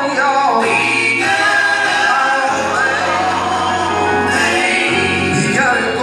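A man singing a gospel song into a microphone over music, with choir-like backing voices and sustained bass notes underneath.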